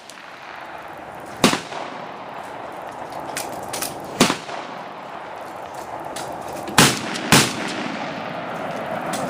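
Rifle shots: four loud cracks, the last two about half a second apart, with fainter shots in between.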